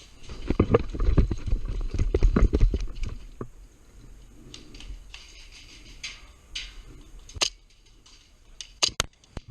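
Quick, heavy running footsteps for the first few seconds, then quieter movement, and a few sharp cracks near the end that are typical of airsoft BBs striking gear.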